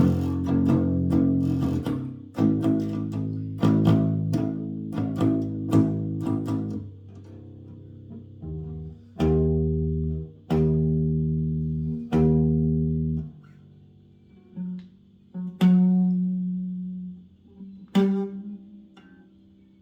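Electric bass guitar played freestyle: a busy run of plucked, ringing notes for about seven seconds, then three struck notes about a second and a half apart, each left to ring and decay, and a few scattered single plucks near the end.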